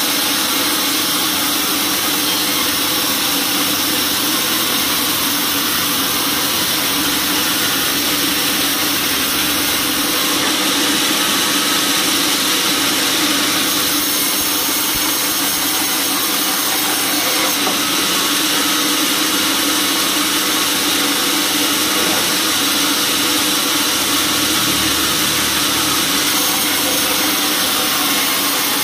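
Band sawmill running steadily, its blade sawing lengthwise through a teak log.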